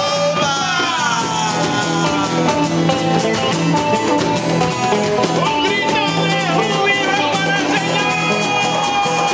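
Lively worship music with singing, and a congregation clapping along in rhythm.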